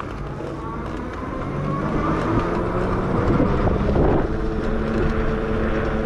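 Electric bike riding off: a steady motor whine over wind rumbling on the microphone, growing louder over the first couple of seconds and then holding.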